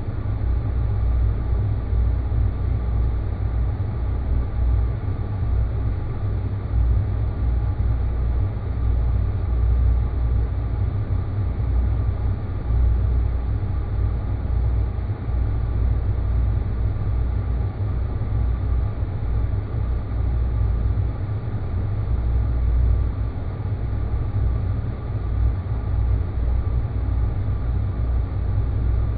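Space-planet ambient sound effect: a steady deep rumbling drone with a faint thin hum of higher tones above it, unchanging throughout.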